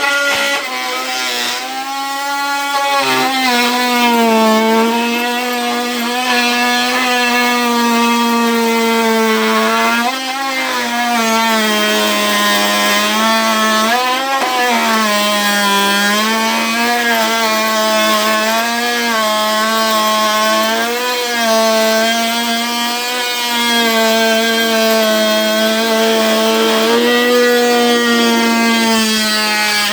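Ryobi brushed oscillating multi-tool cutting a straight line through MDF flooring with a wood blade. The motor keeps up a steady buzzing whine, and its pitch dips briefly every second or two as the blade bogs down under load.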